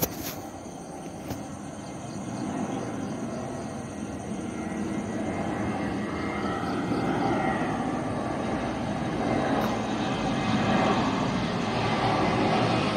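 Airplane approaching overhead: a steady engine rumble that grows louder as it comes nearer, with a sharp click at the very start.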